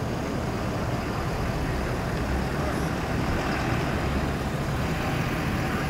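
A Ford F-350 dually pickup towing a heavy gooseneck trailer drives slowly past, its engine and tyres making a steady low rumble.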